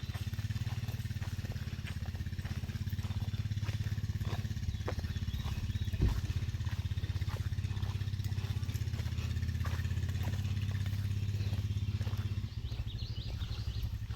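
A low, steady engine rumble with a fast even pulse, easing off near the end, and a single thump about six seconds in.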